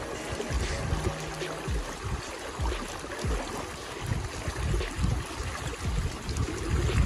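Shallow river current rushing and trickling around the legs of anglers wading in it, with irregular low rumbles throughout.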